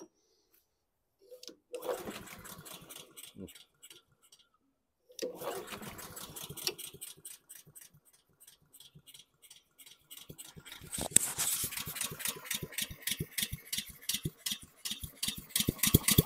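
Honda GCV160 lawn mower engine being pull-started: two short cranking bursts that sputter, then about ten seconds in it catches and runs roughly with a fast, uneven chatter at very low speed. The engine is dogging and barely running, from the carburetion fault being chased.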